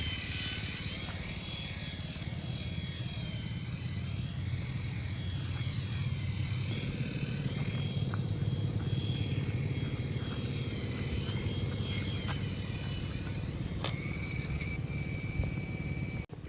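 Small two-channel toy RC helicopter in flight, its electric motor and rotor blades buzzing steadily, with a higher whine that wavers up and down. The sound cuts out briefly near the end.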